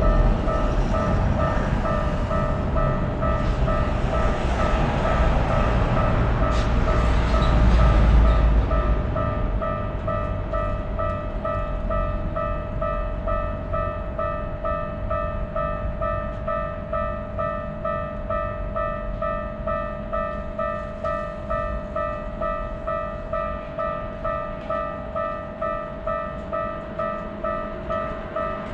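Japanese railroad crossing warning bell ringing in a steady, even rhythm. A train rumbles past for the first several seconds and fades out about nine seconds in.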